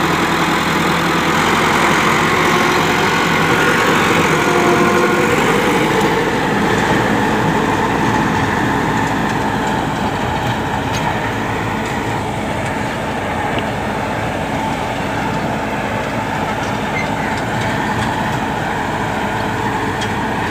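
Massey Ferguson 385 tractor's four-cylinder diesel engine running steadily under load, driving a 60-blade rotavator that churns through the soil.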